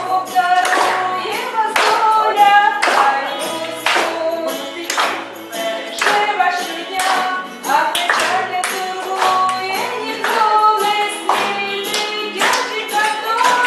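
A song with a sung melody and musical accompaniment, with a group of people clapping along in time to the beat.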